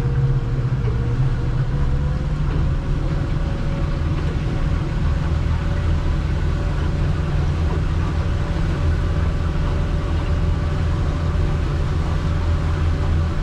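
Boat engine running steadily as the boat moves through a harbour channel, with a faint steady whine that rises a little about two seconds in.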